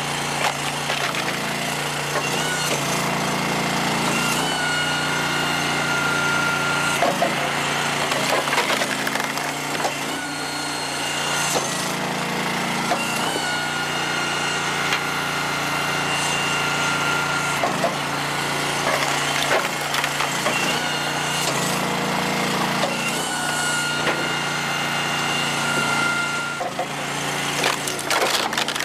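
All Wood Muscle Wood hydraulic log splitter running steadily while its wedge splits ash rounds, with repeated cracks and splintering of wood. A high whine comes and goes every several seconds.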